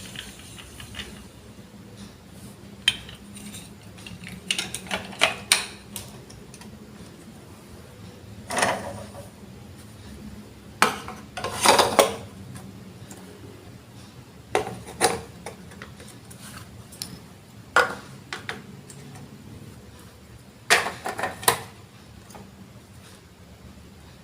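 Hard plastic Lego Duplo bricks clicking and clattering as they are handled and pressed together, in short bursts a few seconds apart.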